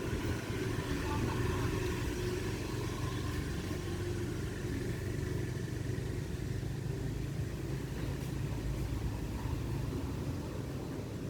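A steady low mechanical rumble that keeps an even level throughout.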